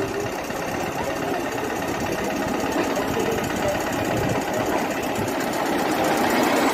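An engine running steadily with a rapid mechanical rattle, growing a little louder near the end.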